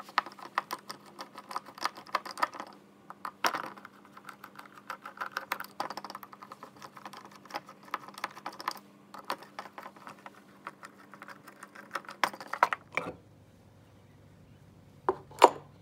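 A screwdriver undoing the small screws of an outboard carburetor's float bowl: quick, light metallic clicks and ticks for about twelve seconds, then a pause and two sharper knocks near the end.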